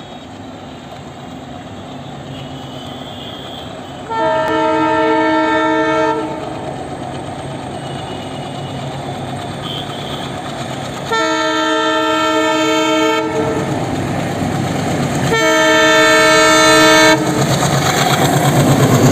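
WDM3D diesel locomotive approaching and sounding its multi-tone air horn three times, each blast a chord of several tones lasting about two seconds. Its engine rumble grows steadily louder, and near the end the rush and clatter of the passing train comes in.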